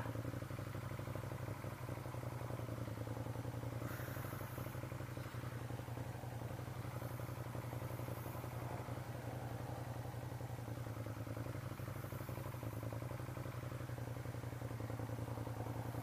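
Ducati Monster's stock V-twin idling steadily at a standstill, with an even low thrum and no revving.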